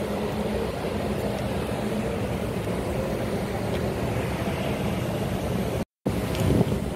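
Steady rumble of a car driving, with road and engine noise and a faint low hum. The sound cuts out for an instant about six seconds in.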